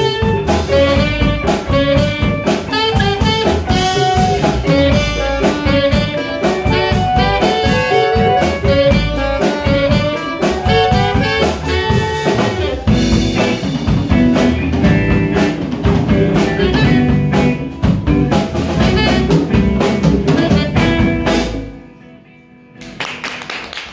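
Live jazz band of alto and tenor saxophones, electric guitar, bass guitar, drum kit and hand percussion playing an instrumental, with the saxophones carrying the melody. The tune stops on a final hit about 21 seconds in, and after a brief hush audience noise starts up near the end.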